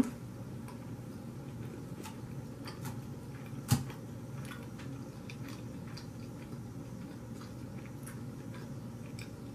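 Quiet chewing of Caesar salad with small clicks of a metal fork against the plate, one sharper clink a little under four seconds in, over a steady low background hum.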